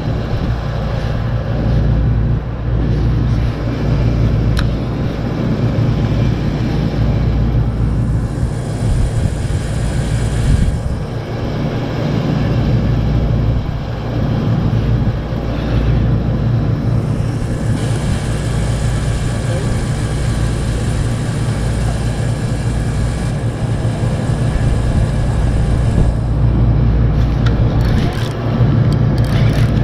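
Wind buffeting the camera's microphone: a steady low rumble, with a higher hiss coming and going.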